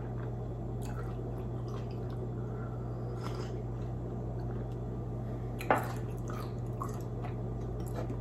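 Faint wet mouth sounds from drinking coffee and swallowing over a steady low hum. A ceramic coffee mug is set down on the table with one sharp knock about two-thirds of the way through.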